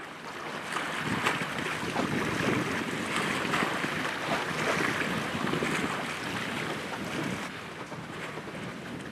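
Wind buffeting the microphone over the rush of sea water, a gusty noise that rises and falls.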